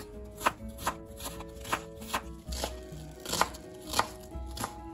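Kitchen knife chopping onions on a plastic cutting board, with sharp knocks coming about twice a second.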